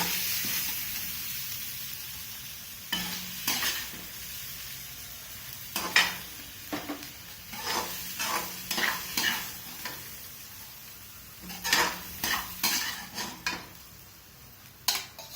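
A spoon scraping and clicking against a pan in short bursts as idli pieces and sautéed vegetables are stirred, over a sizzle that slowly fades.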